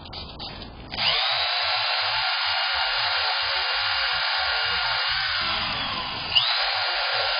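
A cordless drill with a scrub-brush attachment spins up about a second in and runs with a steady high whine as it scrubs a rug. Its pitch sags a little under load before it is revved up again about six seconds in.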